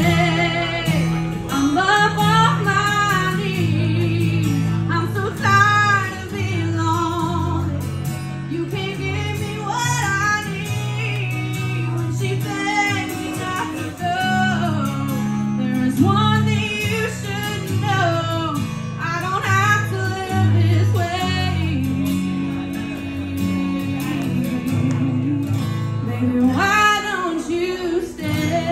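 A woman singing a country ballad into a handheld microphone, with sustained, bending held notes over instrumental accompaniment.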